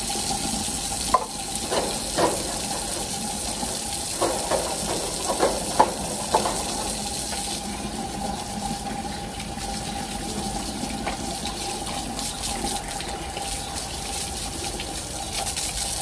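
Water running steadily from a tap while a plastic feeder cup is scrubbed and rinsed under the stream. Several light plastic knocks in the first half as the cup and brush are handled.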